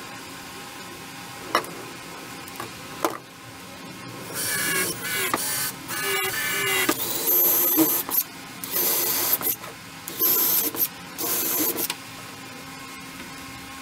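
A cordless drill running in about six short bursts on a wooden cabinet door, whirring up and stopping each time, after a couple of sharp knocks.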